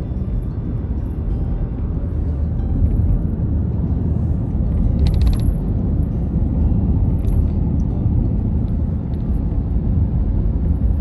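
Steady low road and engine rumble heard from inside a moving car's cabin, with a brief burst of clicks about five seconds in.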